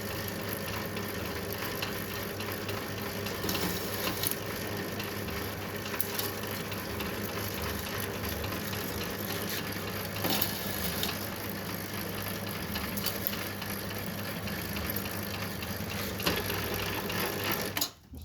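Bamboo skewer shaving machine running steadily with a hum, with scattered sharp knocks as bamboo sticks with nodes go through it. It stops suddenly near the end.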